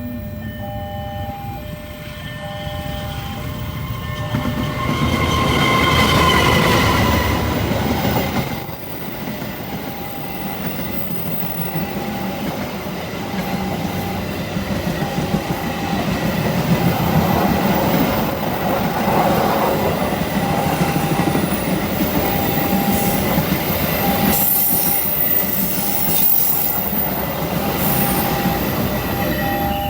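A train passing close by: it sounds its horn about five seconds in, then runs past with loud wheel-on-rail rumble and clatter and high-pitched wheel squeal. Throughout, a level-crossing warning alarm keeps beeping in an even on-off rhythm.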